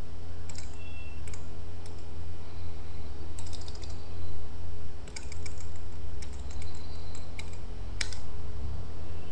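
Computer keyboard keys and mouse clicks, scattered single clicks and short quick runs of them, over a steady low electrical hum on the microphone.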